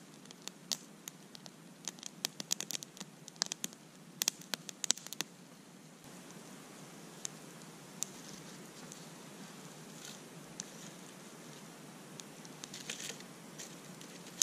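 Wood campfire crackling and popping, with many sharp pops over the first five seconds, then only scattered pops and a short flurry near the end.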